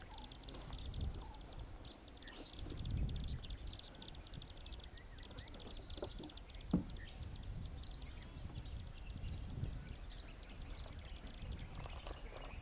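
Open-air ambience: scattered bird chirps over a steady high-pitched hiss and a low rumble, with one sharp click about seven seconds in.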